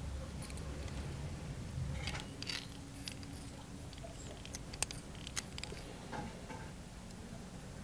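Close handling sounds while hair is bound onto a spinner lure's treble hook with thread: scattered small clicks and ticks, the sharpest two about five seconds in, with a low rumble during the first two seconds.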